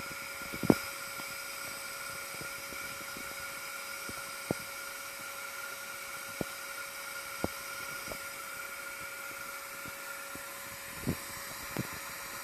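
Honeybee colony humming steadily, a constant buzzing drone, broken by a few short sharp taps.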